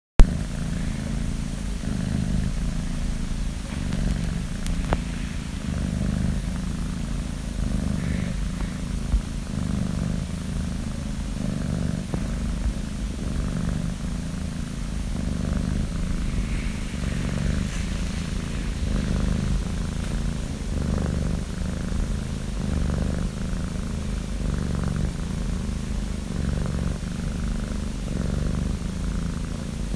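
Five-month-old orange tabby kitten snoring in her sleep: a low, steady rumble that pulses with each breath. There is a brief sharp click at the very start.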